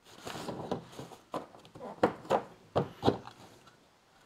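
Hard plastic kayak parts being handled: a series of light knocks and scrapes, with some rubbing between them.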